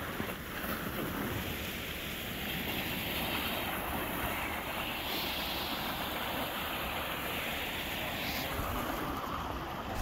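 Steady rush of water from a partly iced-over mountain stream and waterfall.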